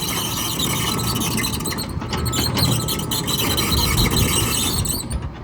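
John Deere 210G LC excavator running and working, with a loud high-pitched metallic squeal over the diesel engine. The squeal cuts off about five seconds in.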